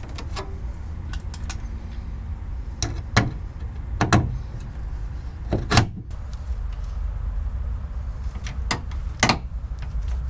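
Hand pop-rivet tool setting a rivet in a metal bracket: a string of sharp metallic clicks and snaps at irregular intervals.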